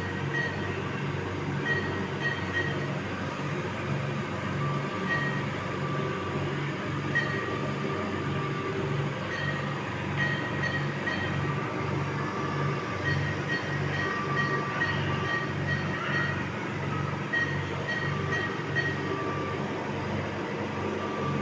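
Neonatal ventilator running in CPAP mode: a steady, rapid, even low pulsing, with runs of short high beeps coming and going over it.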